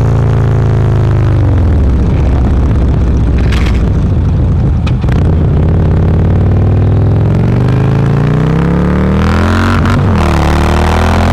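Harley-Davidson CVO's Twin Cam V-twin heard from on board the bike. Engine revs fall over the first couple of seconds as it slows, run low for a few seconds, then climb under acceleration, with a gear change near the end before the revs rise again.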